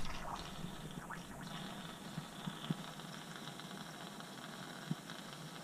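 Air compressor tank being drained of water: a faint sputtering hiss from the drain, dying away in the first half-second into a low steady hiss with a couple of small clicks.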